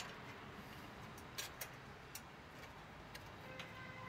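A few faint, scattered metallic clicks as chain-link wire and clamps are handled against a steel chain-link gate frame.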